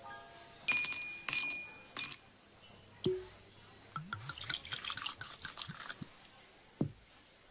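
A highball being made: ice cubes dropped into a glass with three sharp clinks, the glass ringing, then liquid poured into it, splashing and glugging for a couple of seconds, with one more clink near the end.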